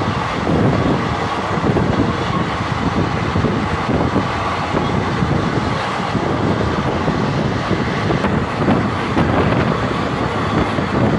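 Steady running noise of a moving vehicle: a continuous, even rumble and rush with no pauses.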